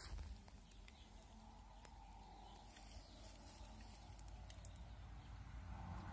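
Near silence: faint outdoor background with a low rumble and a few soft ticks.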